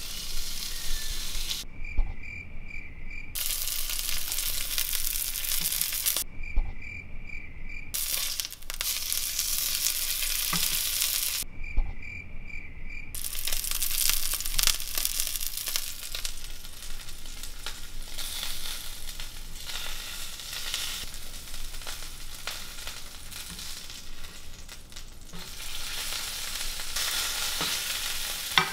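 Filet mignon searing in hot oil in a nonstick frying pan: a steady frying sizzle. Three times the sizzle breaks off briefly, each break starting with a sharp thump.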